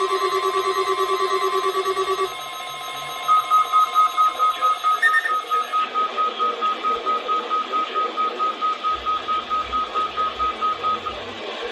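Weather alert radios sounding their alarm beeps for a required weekly test. A fast-pulsing two-tone beep stops about two seconds in, and a higher single-tone beep then repeats about four times a second until shortly before the end, over radio hiss.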